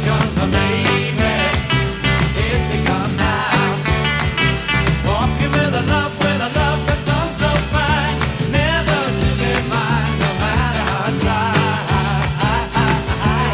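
Pop-rock music with a steady drum beat and a bass line under a wavering melody line.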